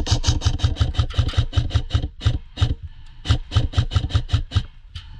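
Airsoft electric gun (AEG) firing on full auto, a rapid train of shots at about eight a second. The shots break off briefly about two seconds in, then fire on and stop about four and a half seconds in.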